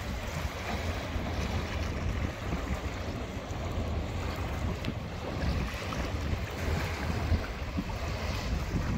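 Wind buffeting the microphone in uneven low gusts, over the steady wash of choppy river water.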